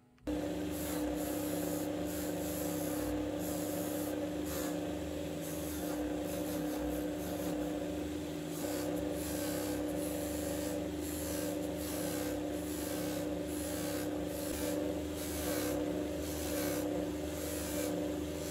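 Bench polisher's cloth buffing wheel spinning with a steady motor hum, while a small black fountain-pen part is held against it, rubbing with a scratchy hiss.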